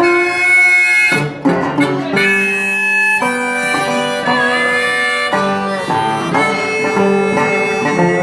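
Blues harmonica playing an instrumental break over a strummed guitar, with long held notes that change every second or so. The harmonica drops out briefly about a second in, leaving a few guitar strums.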